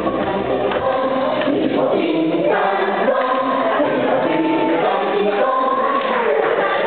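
Loud dance music with several voices singing together in sustained, changing notes; the deep bass drops out after about a second and a half.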